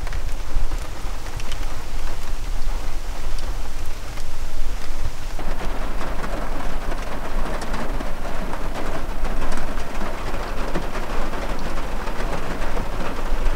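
Rain falling on the roof and windows of a van, heard from inside the van as a steady patter of many small ticks over a low rumble. It grows fuller and heavier about five seconds in.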